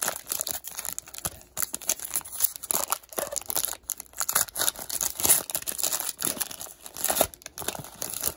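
Foil trading-card pack being torn open by hand: the metallic wrapper crinkles and tears in a stream of irregular crackles.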